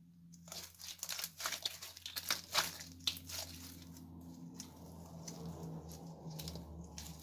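Slime being squeezed and folded by hand, giving rapid sticky crackles and pops, densest in the first few seconds, then sparser clicks as it is pulled and stretched.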